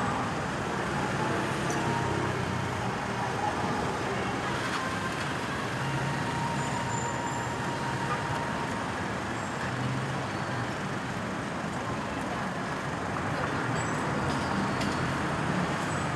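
Steady road traffic noise: vehicles passing, with no siren sounding.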